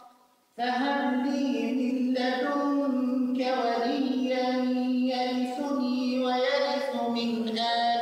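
A man's voice chanting Quranic verses in Arabic in a melodic, drawn-out recitation style, holding long notes that glide slowly in pitch. It comes in about half a second in, after a brief silence.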